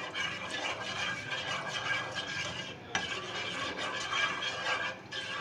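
Steel spoon stirring gelatin in water in a non-stick frying pan, scraping and clinking against the pan, with a sharper click about three seconds in.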